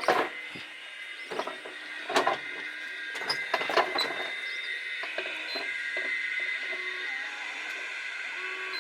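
Several sharp knocks and clicks, mostly in the first half, as a door and its lock are handled, over a steady high-pitched background drone.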